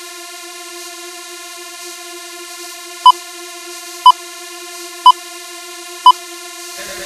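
Steady synthesizer drone of several held tones, with four short high countdown beeps exactly a second apart from about three seconds in, marking the seconds of a film-leader countdown. Electronic dance music with a beat starts near the end.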